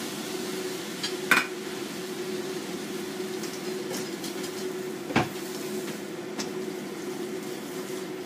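Shredded fuzzy melon being stir-fried with chopsticks in a pan, with sharp clicks of the chopsticks against the pan about one second and five seconds in, over a steady hum.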